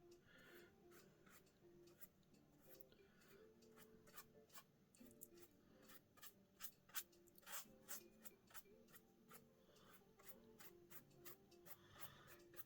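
Very quiet paintbrush work on watercolour paper: soft strokes and a scatter of light ticks and taps, over faint background music.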